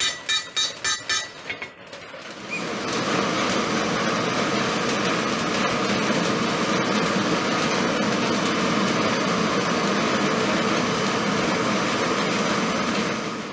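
About six quick hammer blows on a leaf-spring steel machete blade resting on an anvil. Then a steady, loud rush of air being blown into a charcoal forge fire while the blade heats, which stops near the end.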